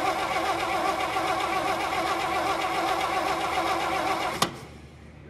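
1949 Dodge truck's flathead inline-six being cranked over by the starter, a steady rhythmic churn that stops with a sharp click about four seconds in. The cranking is working the mechanical fuel pump, which is delivering fuel.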